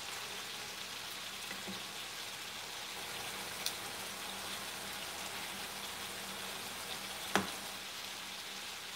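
Cubed stew beef searing in a hot pan, a steady crackling sizzle. Two sharp clicks stand out, a faint one partway through and a louder one near the end.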